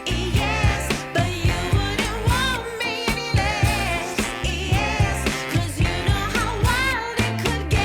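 Background pop song with a singing voice over a steady beat and bass.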